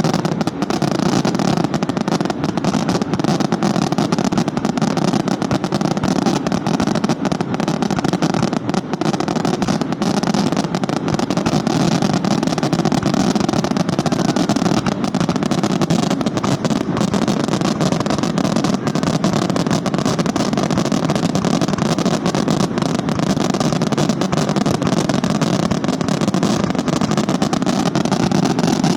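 Fireworks finale barrage: a rapid, unbroken salvo of explosions whose reports run together into a steady rumble with crackle, with no pause throughout.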